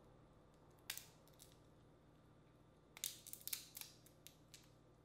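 Boiled crawfish shells cracking as they are peeled by hand: one sharp crack about a second in, then a quick run of crisp crackles and snaps around three seconds in.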